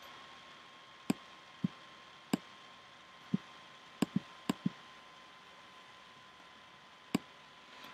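Handling noise from a camera being adjusted by hand: about nine sharp clicks and dull knocks, irregularly spaced, with a quick cluster of four about four seconds in. A faint steady electrical whine runs underneath.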